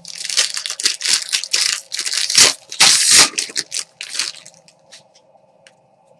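Foil trading-card pack being torn open, its wrapper crinkling and crackling, loudest about two and a half to three seconds in. It then dies down to a few faint clicks as the stack of cards is pulled out.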